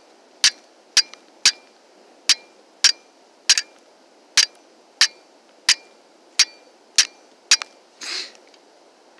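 Flint and steel strikes: the steel blade of a folding saw hitting a hand-held flint rock to throw sparks onto char cloth. A dozen sharp clinks, each with a brief metallic ring, at about one every two-thirds of a second, then one softer, longer scrape near the end.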